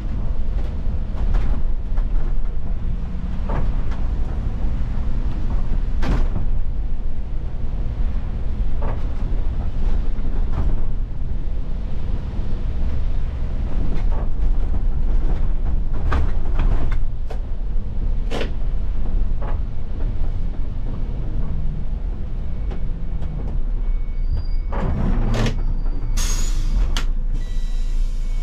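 Iveco Crossway city bus heard from the cab while driving: steady engine and tyre rumble on the wet road, with scattered rattles and knocks. Near the end a short sharp hiss of air, followed by a few brief beeps.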